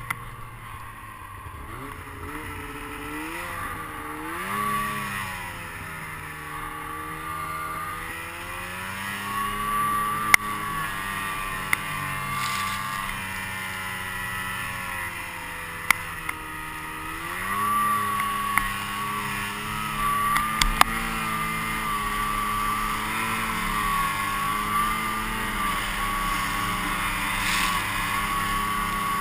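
Snowmobile engine heard from on board, its pitch dropping and climbing with the throttle in the first half, then holding steady at cruising speed. A few sharp knocks stand out above the engine.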